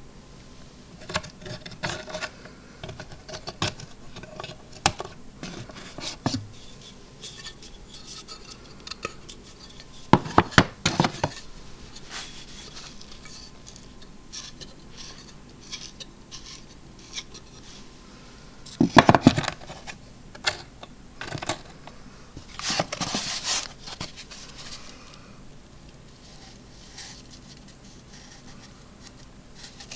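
Handling noises from the parts of an old Edison mimeograph being moved: scattered clicks and light knocks of wood and metal, with clusters of louder knocks about ten and nineteen seconds in, and a scraping rustle a little after twenty-two seconds in.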